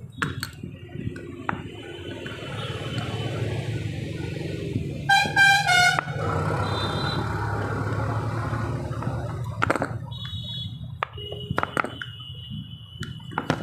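A vehicle horn sounds loudly for about a second, halfway through, over a steady low hum. Around it come small clicks and knocks from a plastic steering-column combination switch being handled and worked with a screwdriver. A thin high steady tone sounds for about two seconds near the end.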